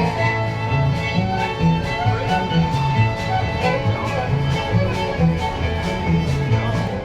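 A band playing bluegrass-style music led by a fiddle, with guitar and bass over a steady beat.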